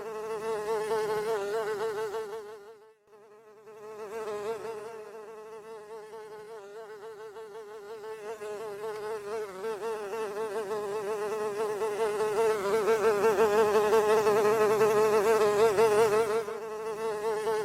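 A blowfly buzzing in flight, a steady drone whose pitch wavers continually. It dips almost away about three seconds in, then grows louder again toward the end as if flying close past.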